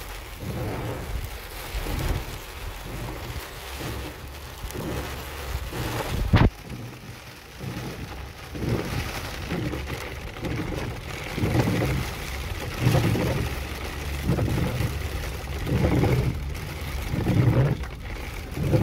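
Heavy rain and hail drumming on a car's roof and windscreen as it drives, heard from inside the cabin, with one sharp loud crack about six seconds in. In the second half, low pulses come about every second and a half.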